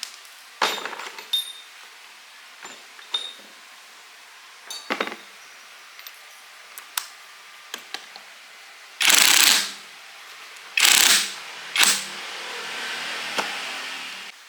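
Metal tools and parts clinking and clicking, some with a short ring, followed by three loud short rushing bursts of noise and then a softer steady hum that stops near the end.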